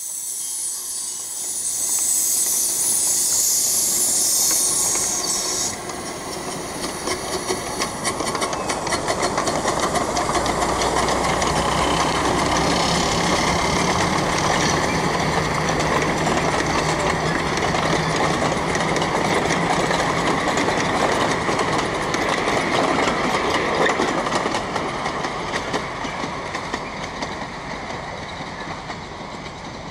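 15-inch-gauge live steam locomotive pulling a train away: a loud hiss of steam venting from its cylinder cocks for the first six seconds or so. Then the train rolls past with a steady rumble and the wheels clicking over the rail joints, fading near the end.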